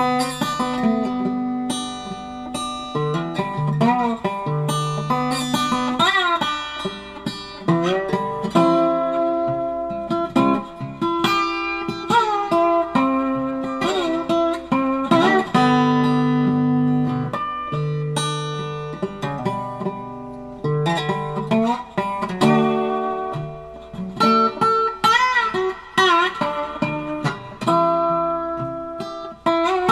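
Background music: a solo guitar playing plucked notes and chords, some notes bending in pitch.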